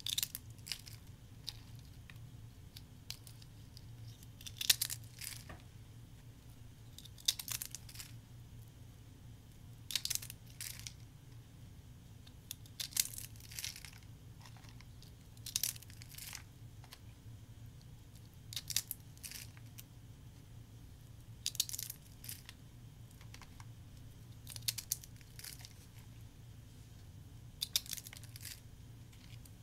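Dry soap curls crushed between fingers, giving crisp crackling crunches in short bursts about every three seconds, over a faint steady low hum.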